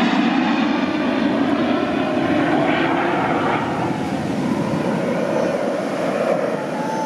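Engines of a formation of small aerobatic planes flying past overhead, a steady engine sound that eases a little in loudness, with a falling pitch near the end.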